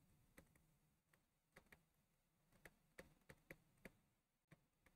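Near silence with faint, irregular ticks of a stylus tip tapping on a tablet screen during handwriting.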